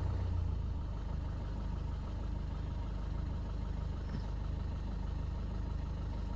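A steady low mechanical hum, like an engine or motor running, with a faint high ticking about twice a second.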